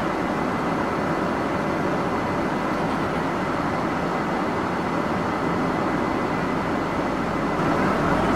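Steady cabin noise of a McDonnell Douglas MD-11 airliner in flight: an even, unbroken rush of airflow and engine noise.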